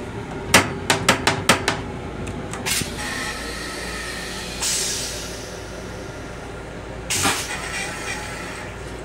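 Sounds of a Long Island Rail Road M7 railcar heard inside its restroom: a quick run of about six sharp knocks or rattles about half a second in, then two short bursts of air hiss, one about halfway through and one near the end, over a steady low background.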